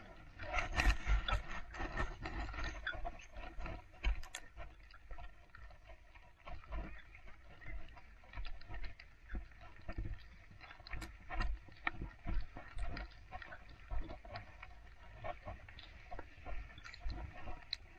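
Footsteps walking on a packed, snow-covered path: a steady run of short scuffs and impacts at walking pace, over a low rumble.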